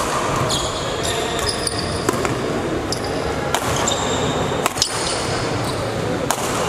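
Badminton rally: sharp racket strikes on the shuttlecock about once a second, with shoes squeaking on the court floor in short, high squeals between the hits.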